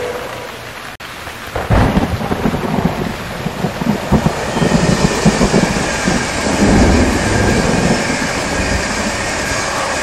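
A passenger train passing close by at speed: a heavy, uneven rumble of wheels on the rails with irregular clattering and a rushing hiss above it, starting abruptly about two seconds in.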